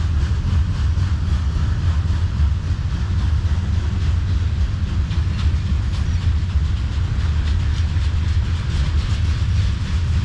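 Norfolk Southern manifest freight train rolling past at steady speed: a continuous low rumble of the cars, with rapid clicking of the wheels over the rail joints.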